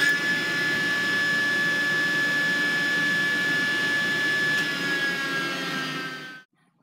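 Table saw with a dado blade spinning at speed, a steady high whine over a rumble. Near the end the whine starts to drop in pitch as the saw winds down, then the sound cuts off abruptly.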